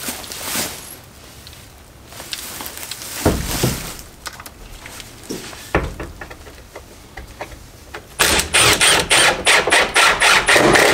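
A cordless impact driver rattling rapidly for about three seconds near the end as it drives a screw into wood. A few scattered knocks and thumps come before it.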